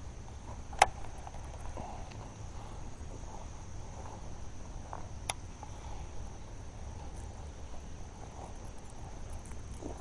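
Insects chirring steadily on one high note, over a low outdoor rumble. Two sharp clicks cut through it, one about a second in and another a little past halfway.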